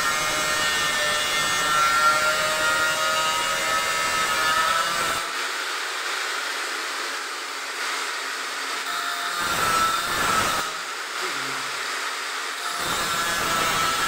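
Angle grinder cutting steel: a loud, steady whine with grating noise while the disc bites and throws sparks. About five seconds in the disc comes off the metal, touches it briefly once, and bites in again near the end.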